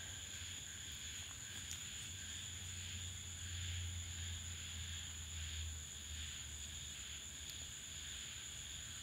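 Steady background room tone: an even hiss with a low hum and a thin, high, constant whine, and no distinct events.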